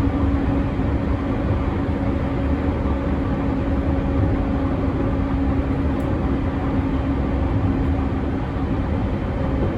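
Running noise of an unrefurbished JR East E231-1000 series electric multiple unit heard inside a motor car at steady speed: rail and wheel rumble with a steady low hum. The uploader finds this car's low hum stronger than usual and suspects it of being an odd-sounding car.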